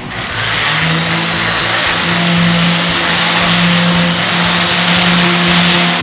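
DeWalt random orbital sander running on a wet concrete countertop: a steady motor hum under a loud hiss of the pad scouring the concrete, starting just after the beginning and cutting off suddenly at the end.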